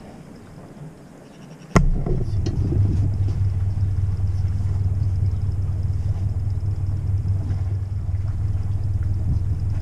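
A sharp click about two seconds in, then a sailboat's inboard engine running steadily at low speed with a low, even hum while manoeuvring in the harbour.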